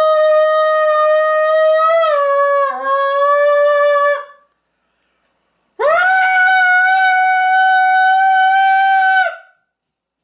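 A man singing long, loud held notes into a crystal wine glass at his mouth, trying to hit the glass's resonant pitch and shatter it. Two notes, a pause of about a second and a half between them, the second a little higher; the glass does not break.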